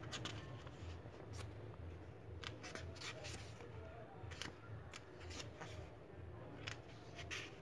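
Pages of a paperback book flipped and riffled by hand: a series of short, crisp paper flicks in uneven clusters, over a low steady hum.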